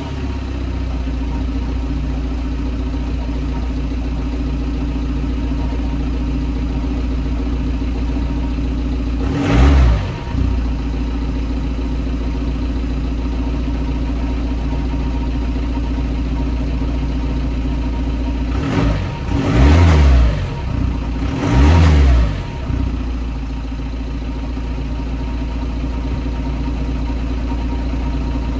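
VW Transporter T5 engine idling steadily at the tailpipe, with an aftermarket exhaust whistle fitted. It is blipped three times: once about ten seconds in and twice close together about two-thirds of the way through. No clear whistle comes through, because the whistle was fitted the wrong way round.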